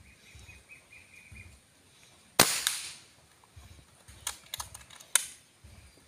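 An airgun fitted with a shroud fires a single shot about two and a half seconds in: a sharp crack with a short tail. A few sharp clicks follow as the action is worked to reload.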